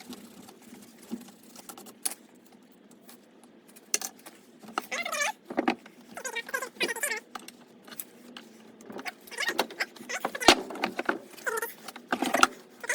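Metal engine parts clinking, rattling and scraping as they are worked apart by hand, with scattered sharp metallic knocks, during the teardown of a Harley-Davidson flathead engine's bottom end.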